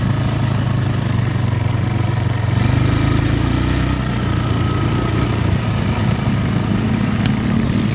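ATV engine running steadily, heard from the machine's own pillion seat, with a slight change in its note about three seconds in.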